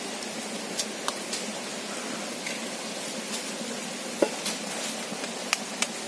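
Egg gravy simmering in a clay pot over a wood fire, a steady hiss, with several sharp taps as eggs are cracked with a knife over the pot; the loudest tap comes a little past four seconds in.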